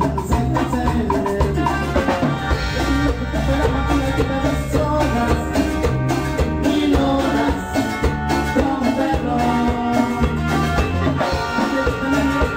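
Latin dance-band music from a medley: a steady bass line and drums under melody instruments, playing without a break.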